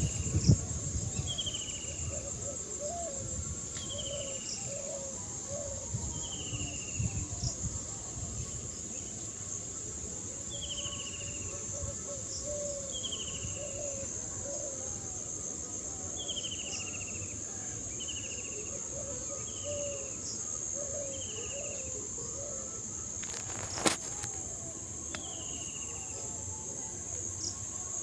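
A steady high-pitched insect trill, with a bird repeating a short falling note every second or two and lower chirping calls beneath. Wind rumbles on the microphone in the first several seconds, and a single sharp click comes near the end.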